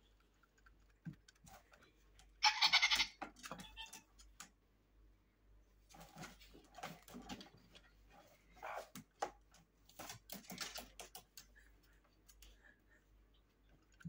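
Blue-fronted Amazon parrot, agitated and displaying, gives one loud harsh call about two seconds in. A run of softer short sounds and clicks follows later.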